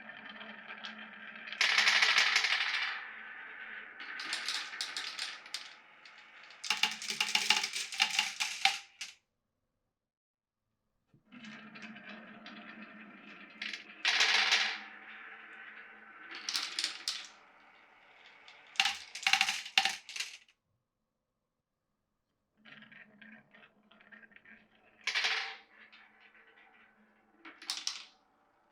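Glass marbles rolling through a wooden-block and pipe marble run with a steady rolling hum, broken by bursts of rapid clacking as they drop and hit the track. The run plays three times, cut off abruptly twice.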